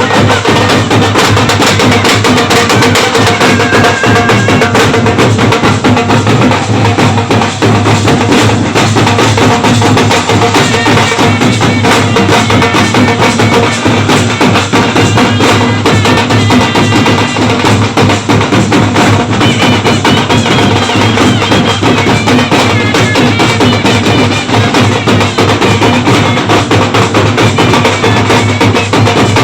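Loud music driven by drums and clattering percussion, with a melody running over a steady beat.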